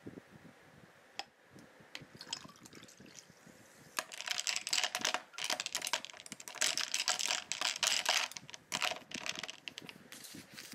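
A drink being poured and mixed in a glass full of stainless steel ice cubes: light clinks and taps, then two spells of dense crackling and clinking, one about four seconds in and one about seven seconds in, followed by more scattered clinks.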